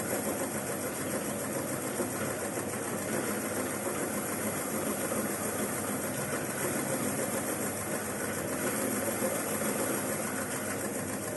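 Home-built oil-palm rib (lidi) stripping machine running steadily, its rotating scraper working the leaflets off the palm-leaf midribs.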